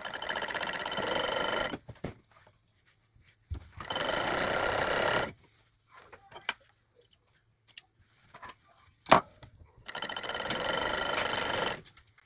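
Juki industrial twin-needle cover stitch machine sewing a hem in three short runs: about two seconds at the start, another from about three and a half to five seconds, and a last one near the end. Its servo motor runs only while the pedal is pressed, so it starts and stops with each run. Between runs there are small clicks of fabric being handled and one sharp click just after nine seconds.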